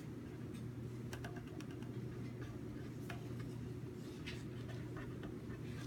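Faint, irregular ticks and taps of a stylus writing on a touchscreen, over a steady low hum.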